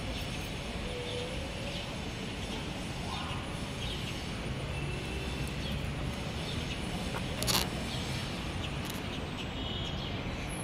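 Steady background noise with faint bird chirps now and then, and one brief sharp click about seven and a half seconds in from hands handling the cardboard viewer.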